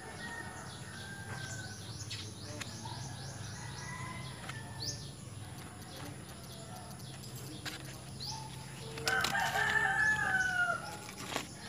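A rooster crowing once, about nine seconds in, the loudest sound here. Small birds chirp in the background throughout.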